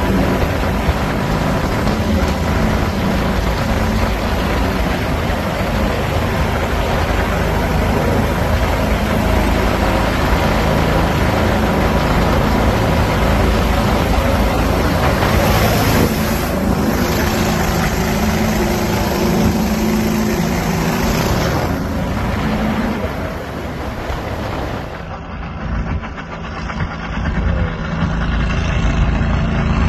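Mud-Skipper 22 hp surface-drive mud motor running at speed, pushing a jon boat, heard from on board with a steady rushing noise. About 25 seconds in, the sound changes abruptly to the motor heard from shore as the boat runs past.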